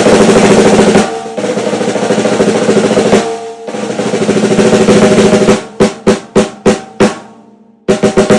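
A whiskey-barrel oak stave snare drum, 14 x 6.25 inch, at a medium tuning with the snares on, played in sustained rolls that swell up. About two-thirds of the way through they give way to five single strokes, then a burst of quick strokes near the end. Each stroke rings with the drum's head tone under the rattle of the snare wires.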